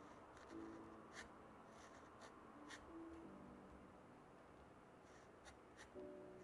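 Steel dip-pen nib (Nikko 537) scratching across sketchbook paper in a series of short, faint strokes while inking small shapes, with soft piano music underneath.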